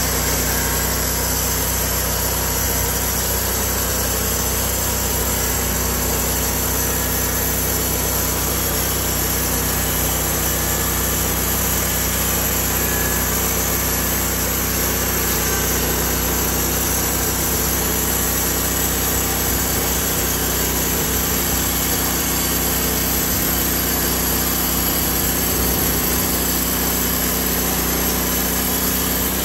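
Gasoline engine of a portable bandsaw sawmill running steadily under load as the band blade saws lengthwise through an eastern white pine cant.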